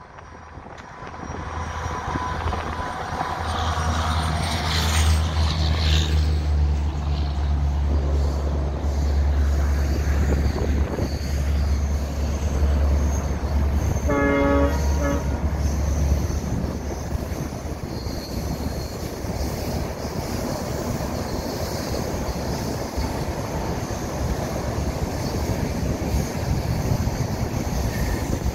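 Indian Railways express train passing: the diesel locomotive's engine drones low and steady, then drops away about 16 seconds in. A short horn blast sounds just before that, and the passenger coaches then roll past with an even rail noise.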